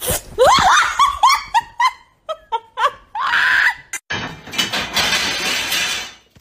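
A person's high-pitched squeals in quick succession, then a longer scream. From about four seconds in comes a noisy clatter, like a pile of rods or slats crashing down.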